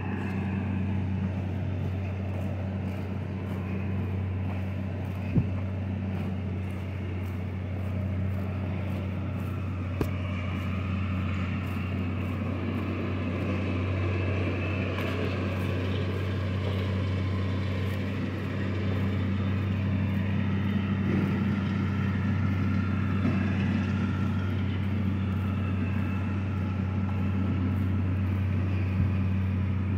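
Tractor engine running at a steady speed: a low, even drone, with a single sharp click about five seconds in.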